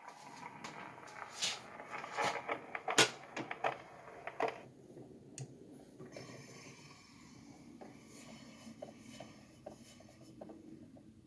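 Stylus riding the run-out groove of a shellac 78 rpm record after the music ends: a sharp click about every three-quarters of a second, once per turn of the disc, over surface hiss. About four and a half seconds in, the clicks fall away to fainter, scattered ticks.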